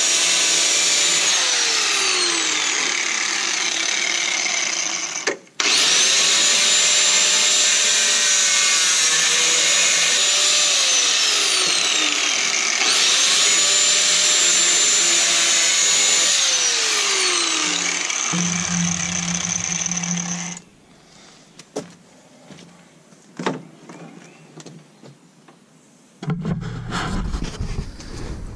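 Corded angle grinder grinding rusted sheet-steel body panel down toward bare metal: a loud, hissing whine whose pitch repeatedly slides down and back up. The motor cuts out briefly about five seconds in and spins back up, then stops about twenty seconds in.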